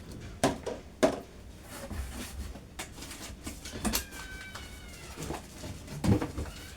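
Packaged groceries being handled and set down: a few sharp clicks and knocks of plastic packets and containers, with a short high, wavering cry about four seconds in.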